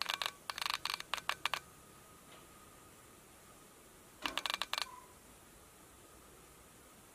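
A cat's paw and claws tapping at a laptop's screen and keyboard: a quick run of clicks for about a second and a half, then a second short run about four seconds in.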